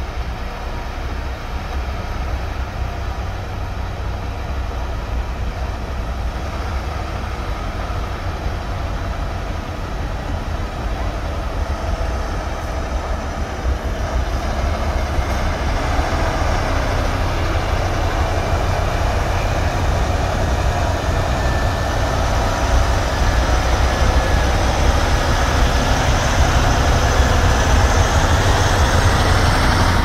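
Heavy snow-hauling dump truck's engine running as it drives up the street, a steady low rumble that grows louder over the second half as the truck comes close and passes.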